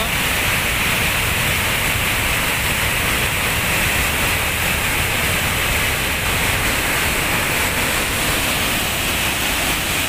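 Heavy flow of water pouring down a concrete dam spillway and breaking into spray: a loud, steady rush.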